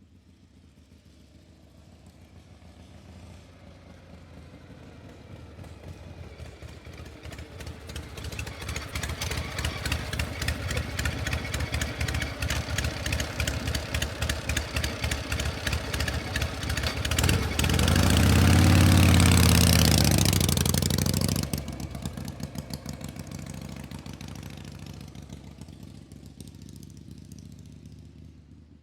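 A motor vehicle's engine running with a fast, even pulse. It grows steadily louder as it approaches, passes close about two-thirds of the way through with a drop in pitch, then fades away.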